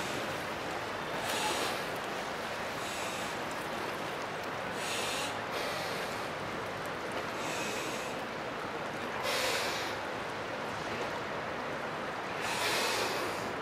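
Choppy river water and wind giving a steady rush, with short hissing surges every few seconds.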